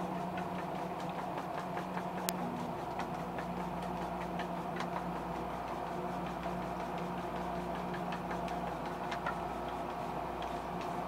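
Steady machine hum holding several constant pitches, with a deeper rumble joining about two and a half seconds in, and faint scattered ticks and clicks.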